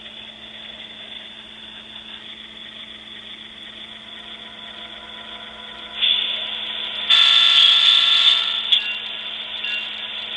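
QSI sound decoder in an Athearn AMD-103 (P42) playing its diesel start-up sounds through a small bare test speaker. It comes in about six seconds in, gets much louder a second later with several steady tones together, then eases off near the end.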